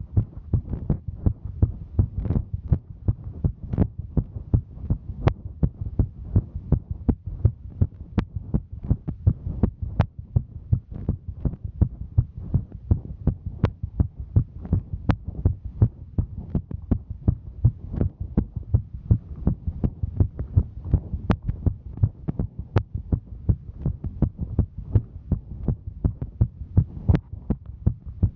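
A woman's heartbeat: a steady, quick run of low thumps, with a few faint sharp clicks scattered through.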